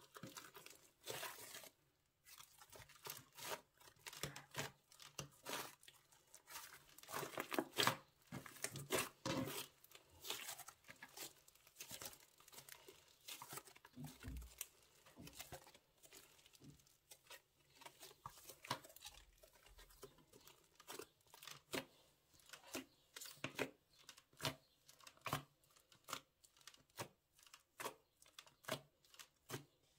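Slime being squeezed and worked by hand, giving dense, irregular crackling pops and clicks.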